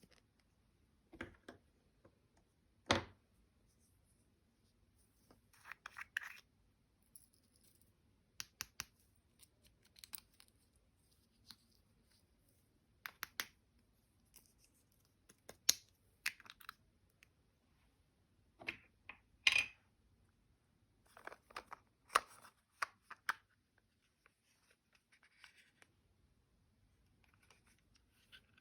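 Slime and makeup being worked by hand: short sticky clicks, crackles and scratchy scrapes every second or two, with quiet gaps between them.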